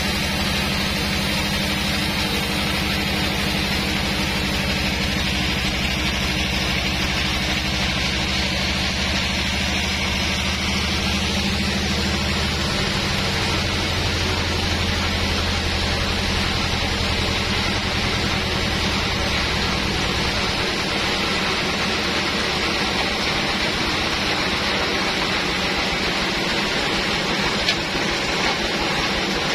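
Large sawmill band saw and its drive running steadily: a low machine hum under a steady hiss. The hum changes about halfway through and fades in the last third while the hiss carries on.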